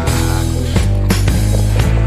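Background music with a steady drum beat and sustained bass and chord tones.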